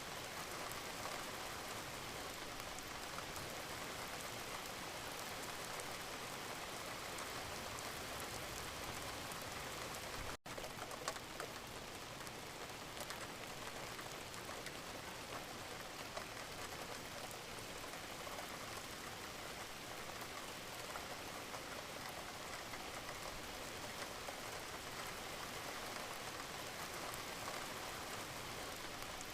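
Steady rain falling, an even hiss of many drops, breaking off for an instant about ten seconds in before carrying on.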